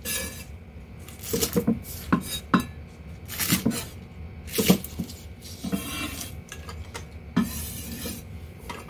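Chinese cleaver chopping scallions on a wooden chopping block: sharp, irregular chops roughly one a second, with a longer scrape of the blade across the board near the end as the cut pieces are gathered up.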